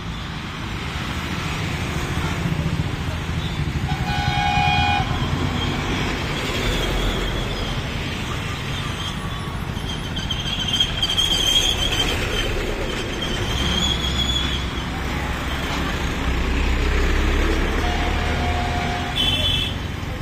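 Busy road traffic of motorcycles, auto-rickshaws and buses passing with a steady engine rumble, heavier as a bus goes by in the second half. Several horn toots sound over it, one about four seconds in and short ones near the end.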